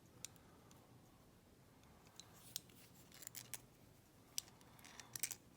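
Faint, scattered metallic clicks from pick wires working inside a three-lever padlock, pushing its bolt the rest of the way open. The clicks come more often in the second half.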